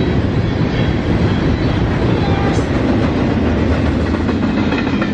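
Freight train rolling past: a steady loud rumble of steel wheels on rail.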